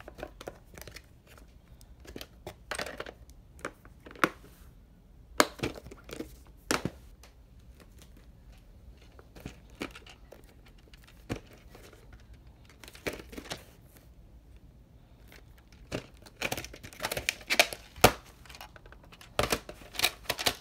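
Plastic VHS clamshell cases and cassettes being handled: scattered sharp clicks and knocks with rustling, coming thicker in the last few seconds.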